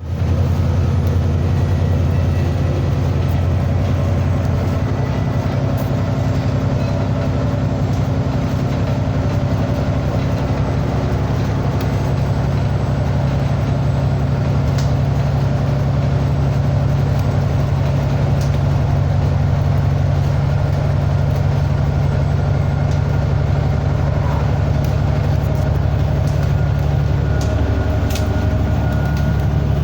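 Loud, steady low mechanical drone of several held low tones, shifting slightly about five seconds in and again near the end, with a few faint clicks.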